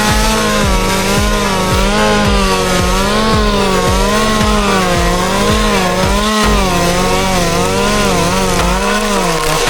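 Chainsaw running under load, its engine pitch rising and falling about once a second as it cuts, then dropping off near the end; a steady music beat plays underneath.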